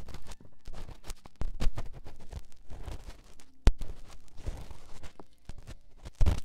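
Feather-tipped ear pick rubbed and tapped quickly against a close microphone for ASMR ear massage: fast scratchy brushing with irregular knocks, the sharpest a little past halfway and another near the end.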